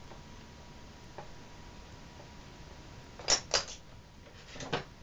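Light metallic clicks and knocks of tools and parts being handled while the belt drive of a Yamaha Grizzly 660 ATV is reassembled after a belt change: three quick clicks a little past three seconds in, and another one or two near the end.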